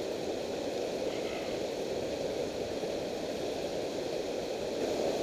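Steady rushing roar of river water pouring over a low-head dam spillway.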